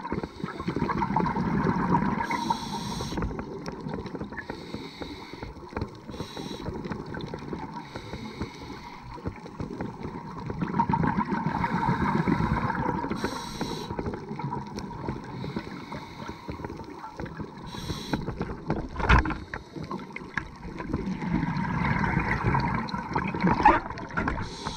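Underwater sound of a scuba diver breathing through a regulator, heard through a camera housing. Bubbling exhalations swell and fade about every ten seconds, with short higher hisses between them and a couple of knocks near the end.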